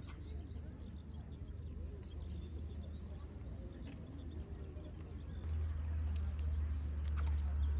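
Faint small-bird chirps over a steady low rumble, which grows louder about five and a half seconds in.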